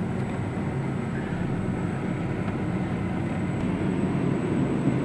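Steady engine and road noise inside a car's cabin as it moves through traffic, growing a little louder near the end.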